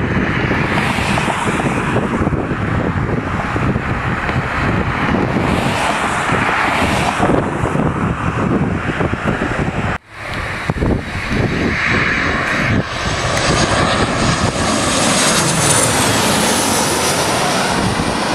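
Jet noise from a Boeing P-8 Poseidon's CFM56 turbofans, at first distant and mixed with wind buffeting the microphone. After a cut about ten seconds in, the P-8 comes low overhead on approach with its landing gear down, engines running with a high whine that rises in pitch as it nears.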